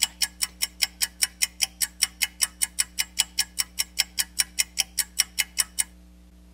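Rapid, perfectly even clock-like ticking, about five ticks a second, that stops abruptly near the end.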